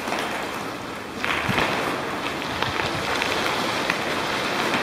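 Bicycle tyres rolling over a gravel trail: a steady crunching hiss with scattered small clicks of grit, growing louder about a second in.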